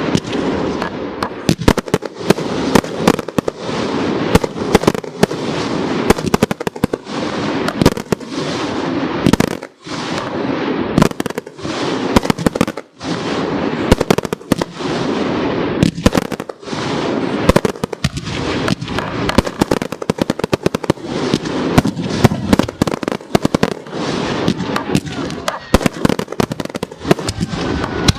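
Professional display fireworks: aerial shells launching and bursting in rapid succession, many sharp bangs close together over a continuous rumble. There are brief lulls about ten and thirteen seconds in.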